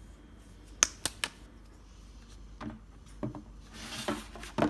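Plastic toys and a plastic carry case being handled on a tabletop: three sharp clicks about a second in, then a few lighter knocks, and a rustle with more clicks near the end.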